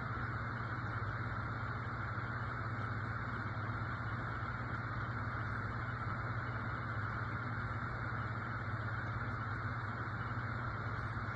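A steady, unchanging hum with a hiss over it, with no pats, cries or other distinct events standing out.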